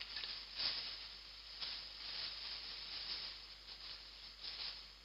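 Hands rummaging through loose Lego pieces: a faint rustle and clatter of small plastic parts that swells a few times.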